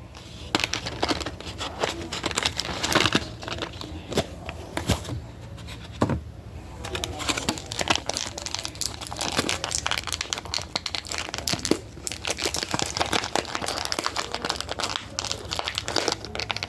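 Action figure packaging being opened by hand: plastic blister and cardboard crinkling and crackling, with some tearing, in quick irregular clicks throughout.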